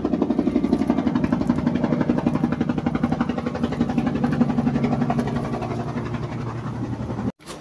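An engine running steadily with a fast, even throb. It eases off a little over the last couple of seconds and cuts off abruptly near the end.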